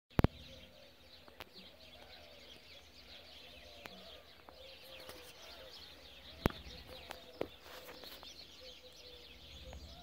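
Morning chorus of many birds singing and chirping at once: a dense high twitter, with a lower call repeating underneath. A few sharp clicks cut through it; the loudest is right at the start, and another comes about six and a half seconds in.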